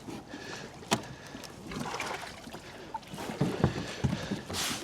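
A fishing kayak on the water: scattered knocks and clunks, with a sharp knock about a second in, a cluster of clunks near the end, and a brief hiss just before it ends.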